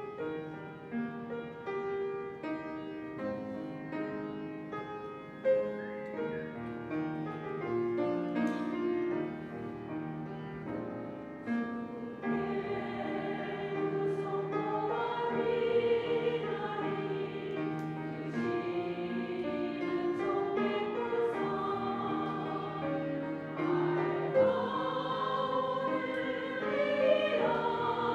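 A women's church choir singing a gospel hymn with piano accompaniment. It opens with an instrumental introduction, and the voices come in about twelve seconds in, where the music grows fuller.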